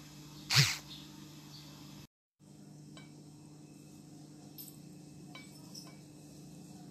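A single short, loud breathy burst from a person about half a second in, over a steady low hum. A few faint clicks follow later.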